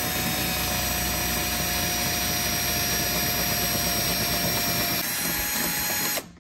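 Milwaukee cordless drill/driver running steadily, its twist bit drilling a hole through the Jeep Gladiator's sheet-metal rocker panel; the whine shifts slightly about five seconds in and stops near the end.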